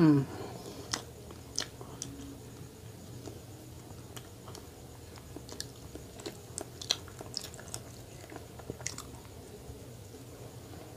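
Close-miked chewing and biting of a soft chocolate-coated, marshmallow-filled donut, with small wet mouth clicks and smacks scattered irregularly throughout. A short hummed voice sound comes right at the start and is the loudest moment.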